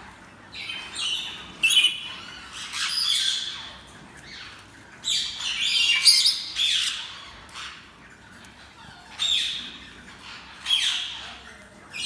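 Sun conure chick squawking over and over, harsh screechy calls coming about once a second with short pauses. They are the distress calls of a frightened chick restrained in the hand while a closed leg ring is fitted.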